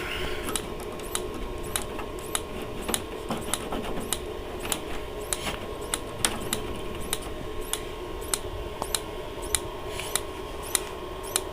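Dometic Americana RV fridge's spark igniter snapping in a steady series of sharp clicks, a little under two a second, as it tries to light the propane burner. The burner does not catch: the owner says the fridge is not getting the signal to turn on the gas through its solenoid.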